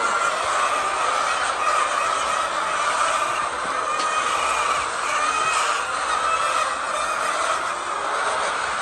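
Chicken flock clucking and calling all at once, many birds overlapping in a steady, continuous chorus.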